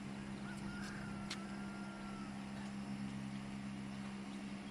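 A steady low machine hum at one unchanging pitch, with a thin whistle sliding slightly down about half a second in and fading after about two seconds.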